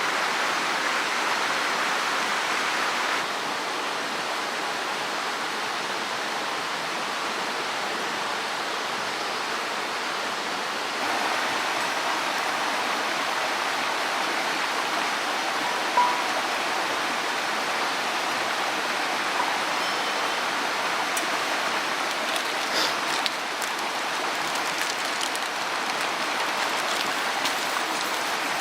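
Mountain stream rushing steadily over rocks, a continuous water noise that drops slightly a few seconds in and rises again about eleven seconds in, with a few faint ticks in the second half.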